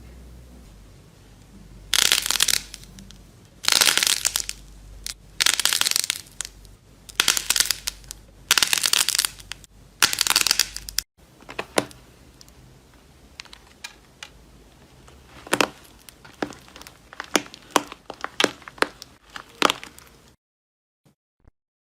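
Slime being squished and pressed: a series of loud crunchy squishes about a second apart, then, after a cut, a run of sharp crackling pops and clicks.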